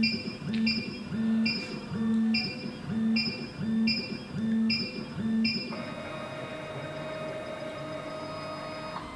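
SEC-E9 key cutting machine's stepper motors decoding a Toyota TOY43 key: a regular pulsing motor whine, about one move every three-quarters of a second, as the probe steps along the key's cuts. About six seconds in this gives way to a steady whine as the carriage travels, which stops abruptly near the end.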